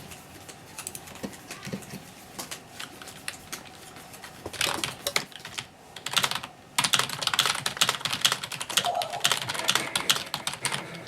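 Typing on a CM Storm membrane keyboard: a rapid clatter of key presses, light and sparse at first, then faster and louder from about two-thirds of the way through.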